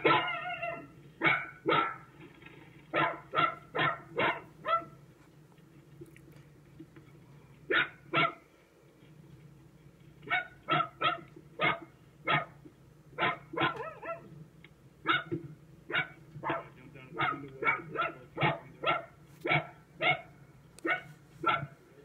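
Dog barking over and over in quick runs of two to five barks with short pauses between runs, over a steady low hum, heard as playback through a screen's speaker.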